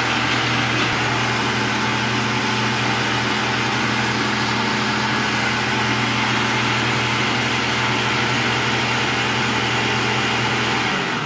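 Countertop blender running steadily at one speed, puréeing sautéed vegetables with bean broth and pieces of chicharrón. It starts to wind down right at the end.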